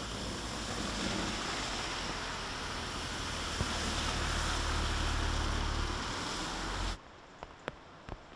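Cars driving through floodwater on a road, their tyres throwing up a loud rushing splash over the low hum of the engines, loudest as the second car passes. It cuts off suddenly about seven seconds in, leaving quiet with a few faint ticks.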